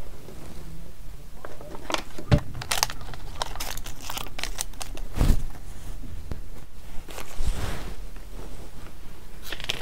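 Paper instruction leaflet being folded and handled, crinkling and rustling with irregular short crackles and taps.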